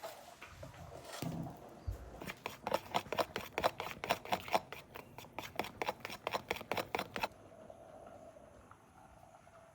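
Rapid, even knocking of a kitchen utensil in food preparation, about five or six sharp strokes a second. It starts just after a low thump about two seconds in and stops abruptly some five seconds later, over a faint steady hum.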